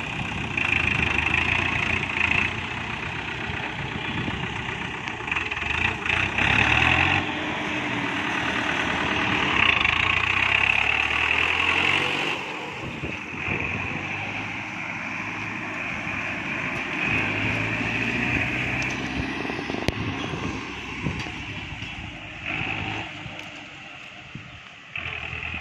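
Farmtrac 60 tractor's diesel engine running steadily, with a high hiss that swells and fades several times.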